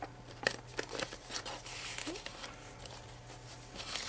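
Paper and cardstock rustling, with scattered light taps and clicks, as handmade journal pieces are handled.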